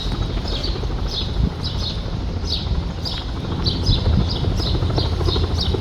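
Small birds chirping, short high calls repeating a few times a second, over a steady low rumble from a Bell 206 helicopter hovering at a distance.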